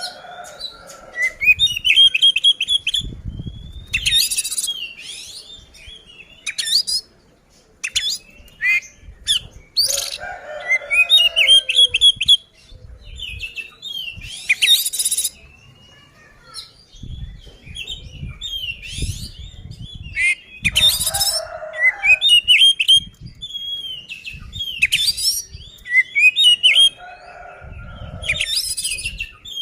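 Oriental magpie-robin (kacer) singing its loud, full fighting song: quick runs of repeated whistled notes mixed with harsh rasping calls, phrase after phrase with short gaps. Low thuds sound now and then beneath the song.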